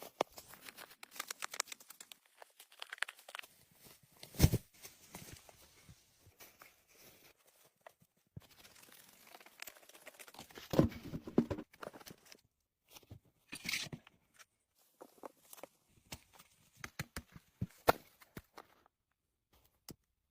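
Dry reeds rustling, crackling and tearing as they are handled, with scattered clicks and knocks and a sharp knock about four and a half seconds in.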